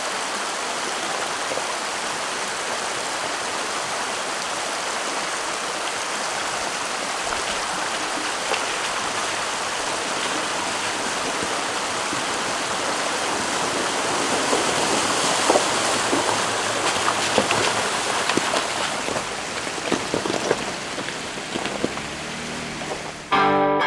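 Steady rush of shallow creek water. In the second half, irregular splashes and knocks join it as a Jeep Wrangler's tyres wade through the stream.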